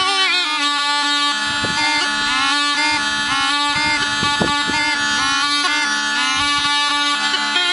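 Music: a melody with sliding, bending notes played over a steady held drone.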